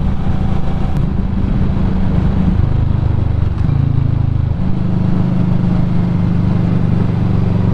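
Motorcycle engine running under way, a steady low drone whose pitch drops about two and a half seconds in and rises again about four and a half seconds in, with road and wind noise over it.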